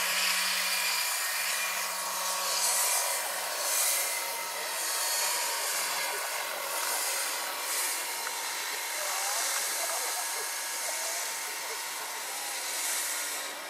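Large electric scale model helicopter (Vario SA-341/342 Gazelle, 2.36 m rotor) in flight: a steady whine from the electric drive with the rushing swish of the rotor blades, easing a little as it climbs away.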